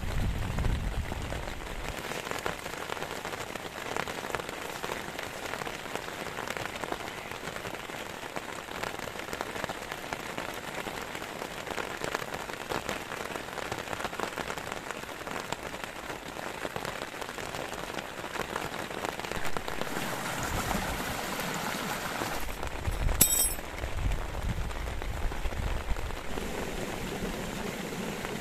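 Heavy rain falling steadily, a dense patter of drops hitting a surface. About 23 seconds in there is one brief sharp click, the loudest moment.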